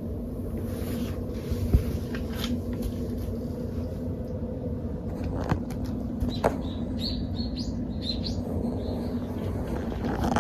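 Kitten making a quick run of short, high, thin squeaks about two-thirds of the way through, over a steady low hum.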